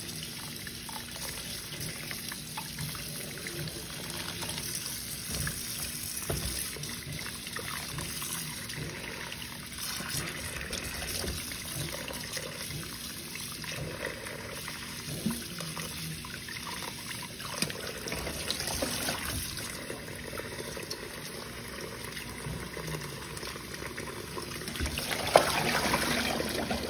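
Water splashing and trickling as peeled potatoes are rubbed clean by hand in a bowl of water in a stainless steel sink, a little louder near the end.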